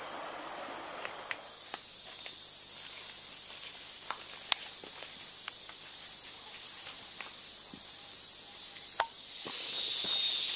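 Rainforest insects keeping up a steady high-pitched drone, with a louder, wider buzz taking over near the end. Scattered light footsteps and twig clicks on the forest trail sound under it.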